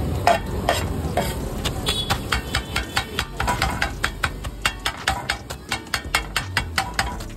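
Flat metal spatulas chopping parotta on a hot iron tawa. A few separate clanks come first, then from about two seconds in a rapid, steady rhythm of about four or five metallic strikes a second, over the sizzle of frying.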